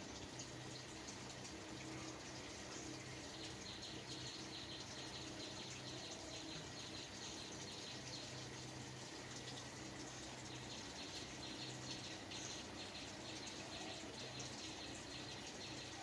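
Faint, steady background noise with a low hum, joined from about three seconds in by a faint, fast, high chirring.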